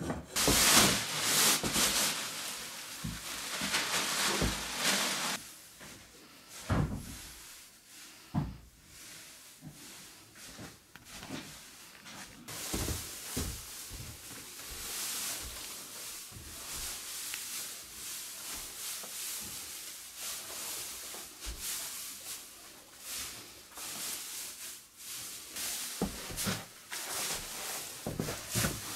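Dry hay rustling as it is carried and spread by hand over a wooden floor, with scattered knocks and bumps on the wooden boards.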